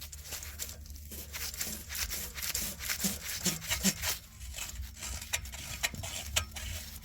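Oxygen sensor being unscrewed by hand from the exhaust: irregular scraping and rubbing with many small clicks, over a steady low hum.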